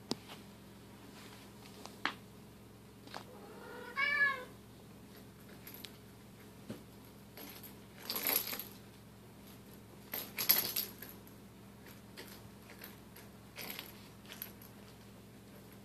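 A Bengal cat gives one short meow that rises and falls in pitch about four seconds in. Around it are scattered light clicks and a few brief jangling rattles as the kittens play.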